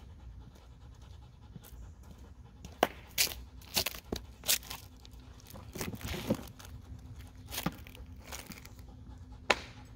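A dog panting in short, irregular bursts of breath, with pauses between them.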